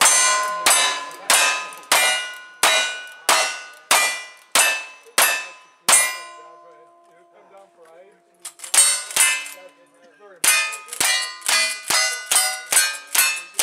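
Single-action revolvers, then a rifle, fired at steel plate targets: each shot is followed by the ringing clang of a hit plate. A steady string of about ten shots comes roughly every two-thirds of a second, then a pause of almost three seconds, two more shots, and a faster string of about ten near the end.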